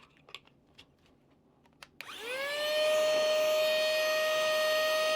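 Small cordless vacuum cleaner switched on about two seconds in, after a few light clicks. Its motor spins up with a rising whine and then runs at a steady, high-pitched whine.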